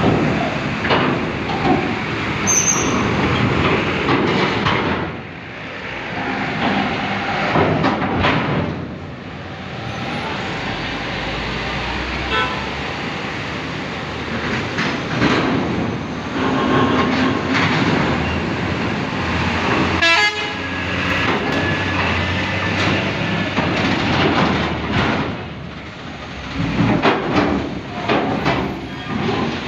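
Heavy vehicles, a coach bus and a cargo truck, driving onto a ferry over its steel loading ramp: engines running, with repeated clanks and bangs as the wheels cross the ramp's plates.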